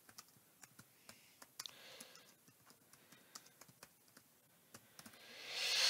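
Computer keyboard being typed on, a scattered run of soft key clicks. Near the end comes a short, louder rush of noise.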